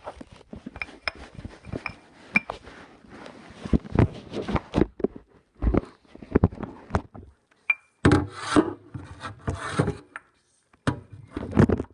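Rubbing and scraping with many short knocks and clicks, as of objects being handled and moved; it is busiest about eight seconds in.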